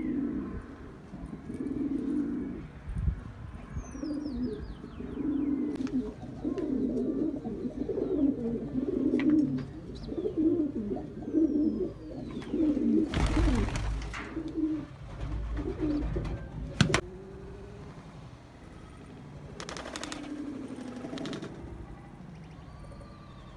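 Domestic Lahori Sherazi pigeons cooing over and over in low, rolling coos, with a few high falling chirps from another bird. The cooing dies away about two-thirds of the way through, and a couple of short noisy bursts are heard.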